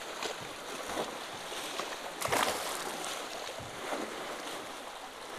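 Water lapping and splashing at the side of a boat as a small hooked bass is brought to the surface, with one louder splash a little over two seconds in.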